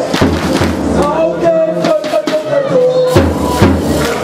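Background music with a steady beat, about two beats a second, over bass notes and a held melody line.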